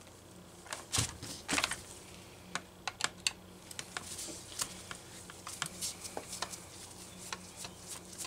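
Irregular clicks and light taps of a screwdriver and small metal parts as screws are worked out of the plastic case of a Homelite XL chainsaw, so the engine can be taken out.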